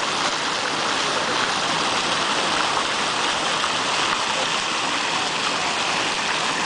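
Tyler Davidson Fountain splashing steadily, its streams and jets falling from the bronze figures and upper basin into the pool below.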